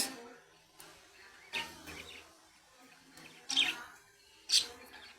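Pet budgerigars chirping: a few short, separate chirps a second or two apart.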